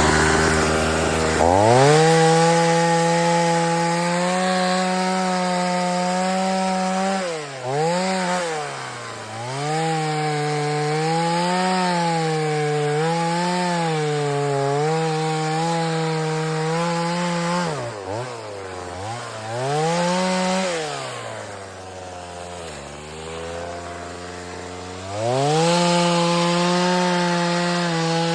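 Chainsaw revving up about a second and a half in and cutting wood at high revs, the engine pitch dipping again and again as the chain is loaded in the cut. Near the end it drops to a lower, slower run for a few seconds, then revs back up.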